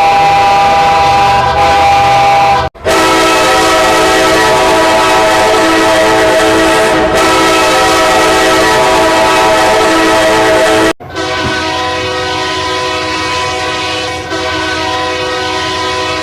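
Train horns being test-sounded in long steady blasts, one horn after another, each cut off abruptly, about 3 and 11 seconds in. The last blast is somewhat quieter.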